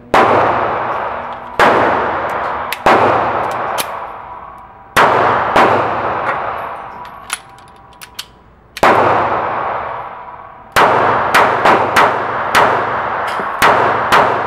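Pistol shots from a .380 ACP Taurus PT738 TCP, each a sharp crack with a long echo in an indoor firing range. Scattered single shots come first, then two quick strings of about three shots a second in the last four seconds.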